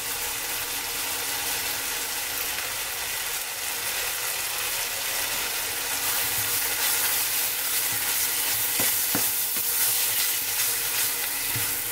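Onion-tomato masala sizzling steadily in a stainless steel frying pan. From about halfway a plastic spatula stirs and scrapes through it, with a few sharp clicks of the spatula against the pan near the end.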